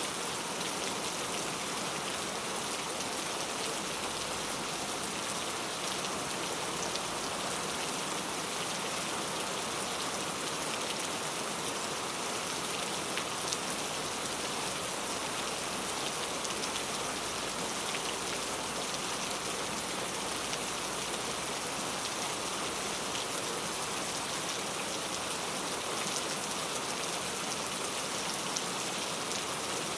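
Heavy rain falling steadily, a dense, even patter of drops with no letup.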